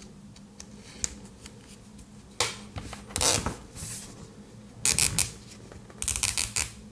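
A plastic zip tie being pulled through its locking head, ratcheting in several short runs of quick clicks, with handling scratches between them. The reused tie is still catching and locking.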